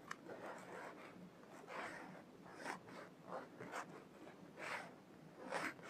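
Faint, brief rubbing sounds, about one a second, of a fingertip dragging across a tablet's glass touchscreen.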